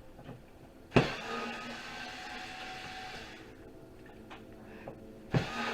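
Handheld power driver running on the power supply's screws: a click about a second in, then a steady motor whine that eases off, starting again with a click near the end.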